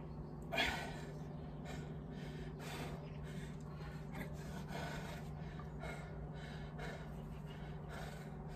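A man breathing hard and fast from exertion during dumbbell thrusters, puffing in and out at about two breaths a second, one louder gasp about half a second in.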